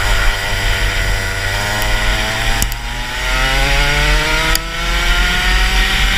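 Rotax Max 125cc single-cylinder two-stroke kart engine pulling through a corner at lower, wavering revs, then revving steadily higher from about halfway through as the kart accelerates down the straight. The kart is geared long (72/12) for this twisty track, so it comes out of the corners slowly.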